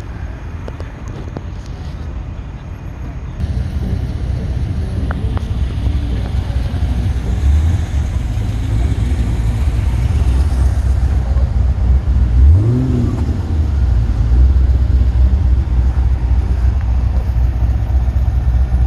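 A motor vehicle's engine running close by, getting louder a few seconds in; about two-thirds of the way through it revs once, rising in pitch, then runs on steadily.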